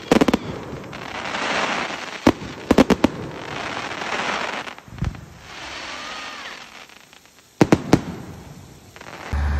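An aerial fireworks display: shells bursting with sharp bangs that come in quick clusters every couple of seconds, with swells of crackling from the glittering bursts in between.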